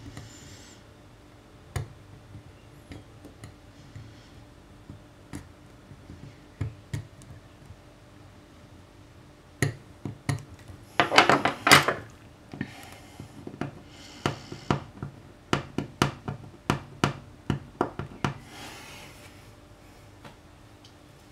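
A hob scraper blade scraping melted plastic off a glass-ceramic hob: scattered ticks and short scrapes, a longer, louder scrape about eleven seconds in, then a run of quick sharp clicks as the blade chips at the residue.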